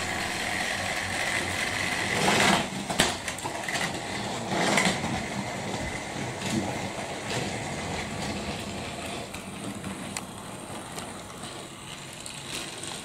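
Battery-powered toy trains running on plastic track: a steady small-motor whir, with a few sharp clacks between about two and five seconds in.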